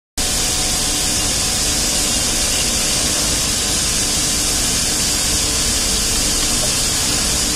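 A steady, even hiss over a low rumble, with no distinct knocks or tool sounds.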